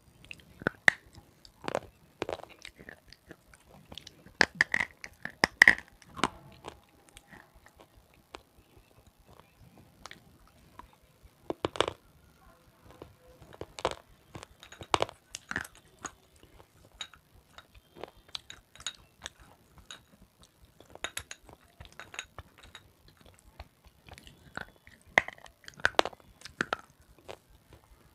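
Close-miked biting and crunching of red slate pencil (sileti): sharp, brittle crunches in irregular clusters with chewing between them, the loudest bites about five seconds in.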